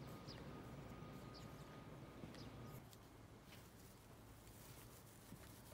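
Near silence: faint outdoor background with a low rumble, and a few faint short high chirps about a second apart in the first few seconds.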